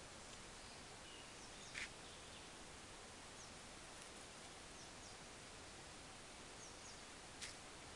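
Near silence: a steady faint hiss with a few faint, short high chirps and two soft clicks, one about two seconds in and one near the end.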